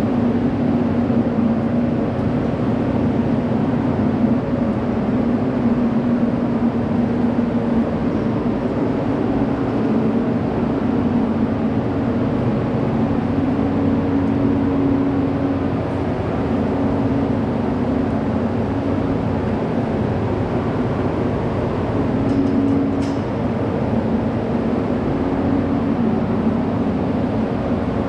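Steady drone of barn ventilation equipment running: a constant rushing noise with a low hum.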